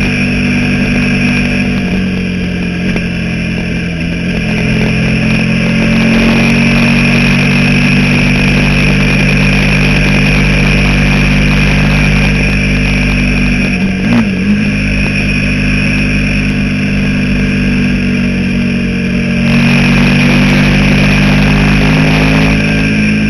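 Motorcycle engine running steadily while riding, its pitch shifting with throttle a few times, with a brief dip and rise about fourteen seconds in.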